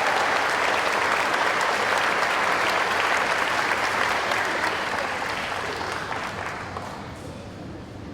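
Audience applause from a large crowd, loud at first and then dying away over the last few seconds.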